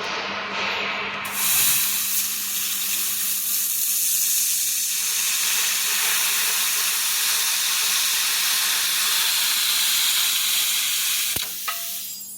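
Handheld laser cleaning head firing at a surface: a loud, steady sizzling hiss that jumps up about a second in and stops with a click near the end. A steady low hum runs underneath.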